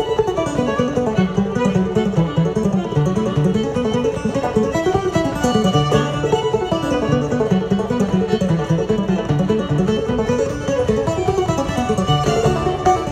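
Live old-time string band music: a fiddle and a clawhammer banjo play a quick tune together, with other strings behind them.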